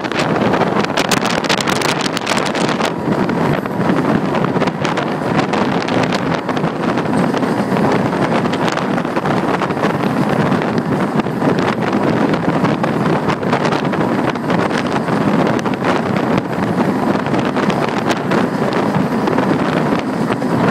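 Steady rush of a moving passenger train heard from an open carriage window: wind buffeting the microphone over the running noise of the train on the track, with a few sharp crackles about a second in.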